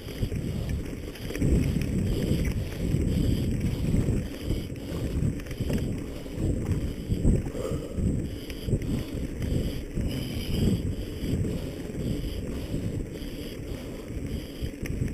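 Wind buffeting the microphone, an uneven low rumble with frequent small knocks and surges in level.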